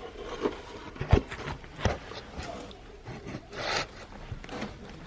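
Handling noises: a few sharp knocks and a short rasping scrape.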